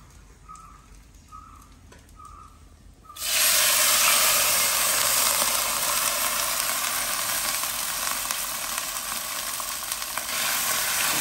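Water poured into a hot pan of coconut oil with tempered mustard seeds, ginger, green chillies and curry leaves, hissing and sizzling loudly as it hits the oil. The sizzle starts suddenly about three seconds in and keeps up steadily.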